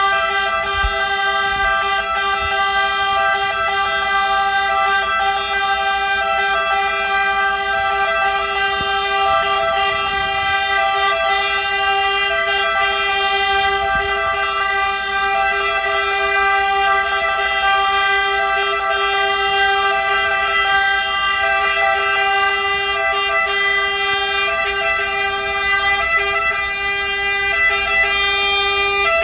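Fire engines' horns sounding together in one long, unbroken, steady chord, the fire brigade's salute at a firefighter's funeral; it cuts off at the very end.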